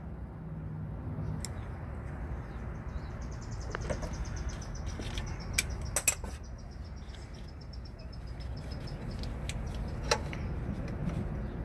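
A few sharp clicks and knocks of metal parts being handled as a crankshaft position sensor is refitted, over a low steady rumble. A bird's high, rapid trill runs through most of it.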